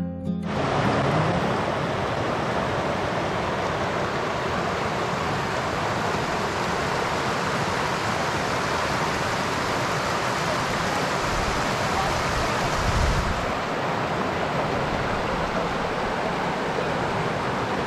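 Spring-fed water rushing steadily over shallow stepped rock ledges and small cascades, a continuous even hiss. A brief low rumble comes about two-thirds of the way through.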